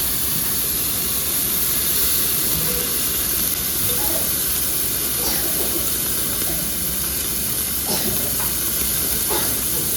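Meat sizzling on a tabletop yakiniku grill, a steady hiss as its fat melts.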